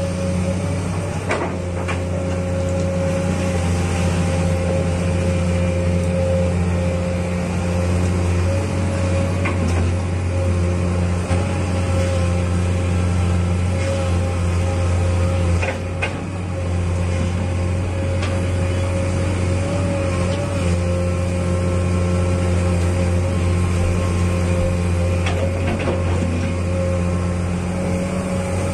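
Komatsu PC200 excavator's diesel engine running steadily with a high tone over its low hum, as the bucket smooths a mud spoil bank. A few light knocks come through, and the sound dips briefly about halfway through.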